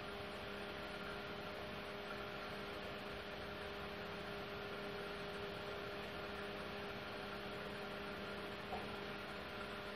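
A steady electrical hum of several pitches over a background hiss, with a faint click near the end.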